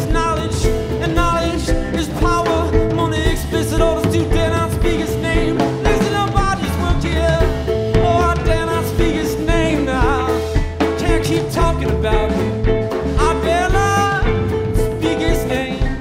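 Live indie rock band playing an instrumental passage: drum kit, bass and electric guitar under a steady held note, with a wavering, sliding melody line on top.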